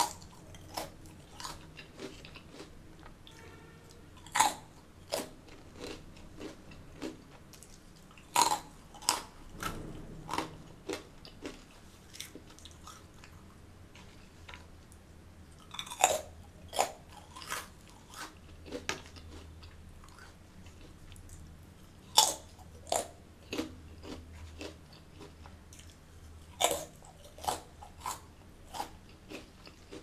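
Close-miked biting and chewing of crunchy fried Indian snacks. Sharp crunches come in bursts every four to six seconds, each trailing off into softer crackling chews.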